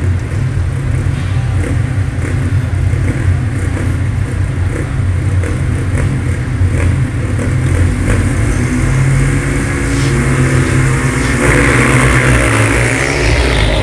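Four ice speedway motorcycles' 500 cc single-cylinder engines running together at the start line. They rev up and rise in pitch as the bikes launch off the start near the end.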